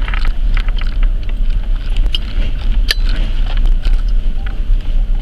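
Inside a vehicle's cab on a dirt track: a steady low engine and road rumble, with small items rattling and clicking and one sharp knock about three seconds in.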